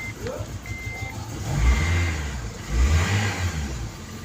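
Honda Stream's four-cylinder petrol engine running just after starting, revved up briefly twice over its idle. The engine starting confirms the replacement ECM has been accepted. A short high electronic beep sounds near the start.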